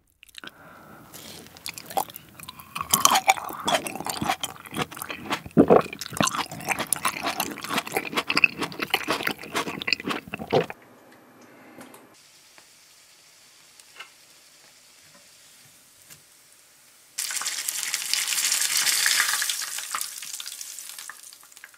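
Close-up mouth sounds of a cherry tomato being bitten and chewed, over roughly the first half. After a quiet stretch, a breaded roll pork cutlet sizzling in a small pan of hot oil for the last few seconds.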